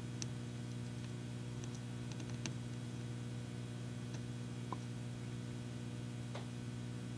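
Faint, scattered small clicks and ticks as a soldering iron tip and tweezers touch a wire on a flight controller's solder pad, over a steady low electrical hum.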